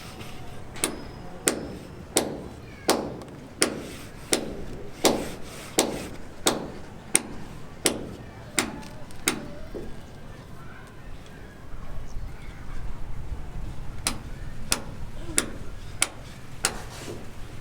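Steady, repeated hammer blows, about one every 0.7 seconds, each with a short ringing decay; after a pause of a few seconds, four more blows come near the end. A low rumble builds underneath in the second half.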